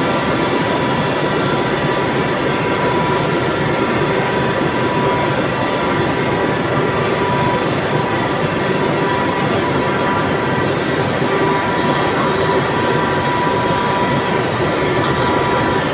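Steady machinery noise: a constant rumbling hum with a steady high whine running through it, unchanged in level throughout.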